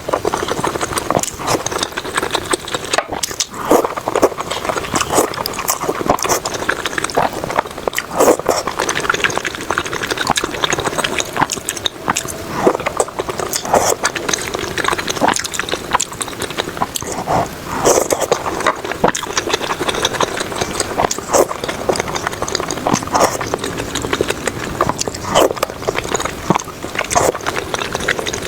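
Mouth sounds of eating thick pho noodles: slurping, chewing and wet smacking, with many short clicks throughout.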